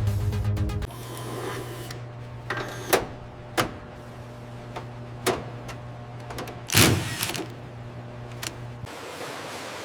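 Machinery in operation: a steady low hum with several sharp mechanical clicks and clunks, the loudest about seven seconds in; the hum stops shortly before the end. Music fades out in the first second.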